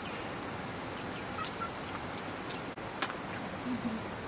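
Steady background hiss with a few short, faint calls of domestic fowl and two sharp clicks about a second and a half apart.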